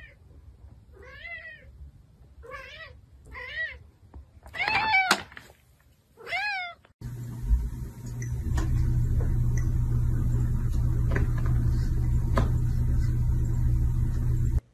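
A cat meowing about six times, each meow rising then falling in pitch, the loudest about five seconds in. About seven seconds in, a loud steady hum starts suddenly and runs on with a few sharp clicks.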